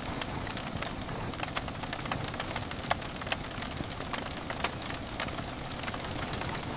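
Steady rain, with individual drops striking as sharp little clicks throughout.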